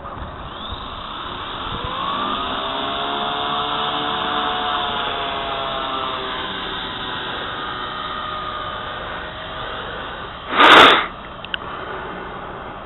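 M120 radio-controlled helicopter's electric motor and rotor spinning up with a rising whine, then running at a steady pitch. About ten and a half seconds in, a short, loud burst of noise breaks in.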